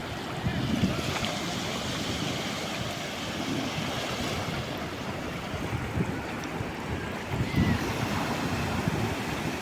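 Calm sea waves washing steadily onto the shore, with low gusts of wind on the microphone now and then.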